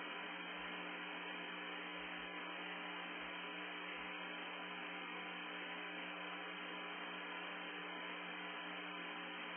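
Steady static hiss with a low hum and a few faint constant tones, cut off sharply in the upper range as on a narrow audio channel: an open feed carrying no voice.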